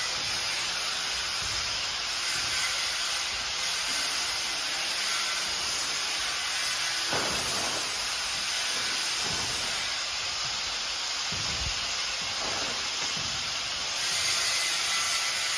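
Steady, even hiss, with a few faint low thumps in the second half.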